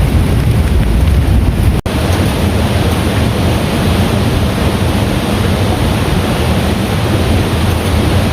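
Heavy rain pouring steadily in a dense, even rush, with a deep low rumble early on. The rain is cut off for an instant about two seconds in and then continues brighter and hissier.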